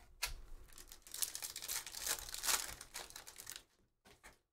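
Trading cards and a foil pack wrapper being handled, a quick run of crinkling and rustling that stops shortly before the end.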